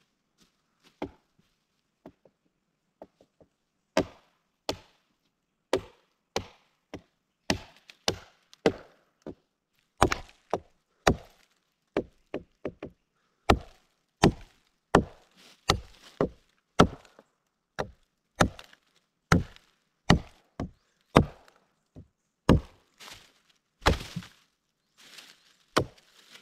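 Dry wood being chopped with a blade: a run of sharp chopping strikes, sparse at first, then about two a second.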